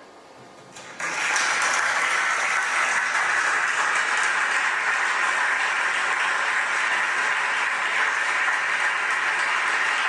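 Audience applause from a classical orchestral recording, played back through a 6J1 vacuum-tube preamp. The applause starts about a second in and then holds steady.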